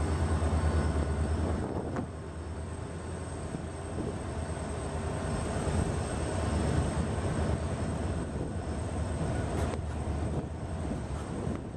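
A diesel freight train passing close by. The locomotive's low engine drone fades in the first second or two, then a long rake of open freight wagons rolls past with a steady rumble of wheels on the rails.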